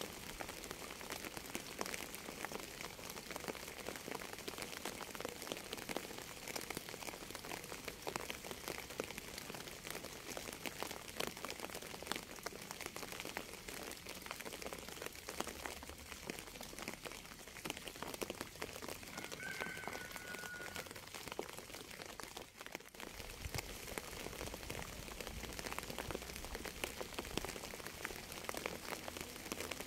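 Steady rain falling, with many separate drops striking close by. A short, faint whistle-like tone sounds about two-thirds of the way through.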